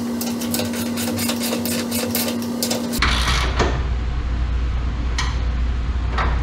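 Cordless impact driver running bolts into the scale feet: a steady motor whine with rapid hammering clicks for about three seconds, then a louder, lower steady hum for the rest.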